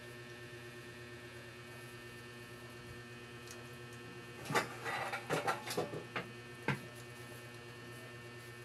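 Steady electrical hum, with a flurry of short clicks and knocks between about four and a half and seven seconds in.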